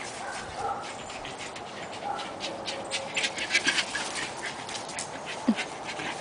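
Dog panting, a quick run of short breaths that is busiest in the middle, with a few faint whimper-like squeaks near the start.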